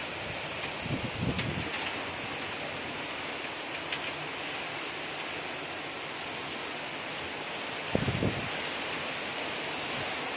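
Heavy downpour: dense, steady rain hiss, with two brief low rumbles, about a second in and about eight seconds in.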